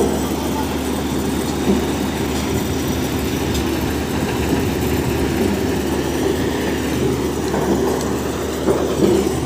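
Truck-mounted arch-roof roll-forming machine running steadily as it feeds out a long steel panel, a continuous low mechanical rumble with a couple of small knocks.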